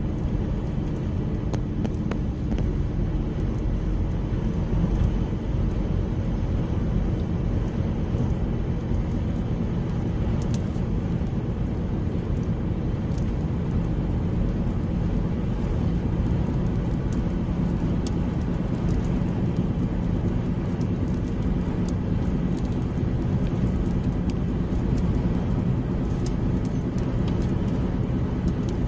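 Steady low road and engine rumble of a car driving on a highway, heard from inside the cabin, with a few faint ticks here and there.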